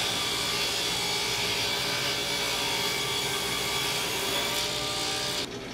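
Table saw running steadily as a 2x4 is ripped lengthwise along the fence to trim off its rounded edges. The sound drops off abruptly near the end.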